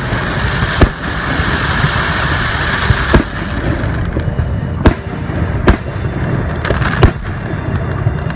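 Aerial fireworks shells bursting: about seven sharp bangs, irregularly spaced roughly a second apart, over a steady rushing background noise.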